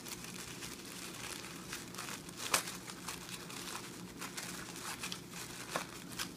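Tissue paper rustling and crinkling as it is unfolded by hand, with scattered sharp crackles, the loudest about two and a half seconds in.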